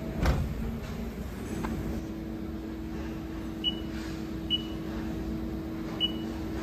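Haas CNC lathe control panel beeping as keys on its keypad are pressed: three short high beeps of the same pitch, a second or so apart, over a steady low hum. A thump comes just after the start, the loudest sound.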